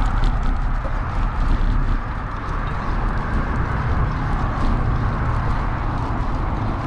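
Steady wind rush on the microphone and tyre noise from a road bike rolling along a paved pathway, with many small rattling clicks from the bike going over the rough surface.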